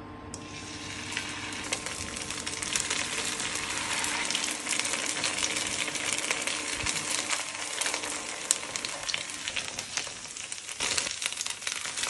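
Potato-and-pumpkin patties frying in a pan: a dense crackling sizzle starts abruptly as the first spoonful of mash goes into the hot pan, then runs on with many small pops and spits.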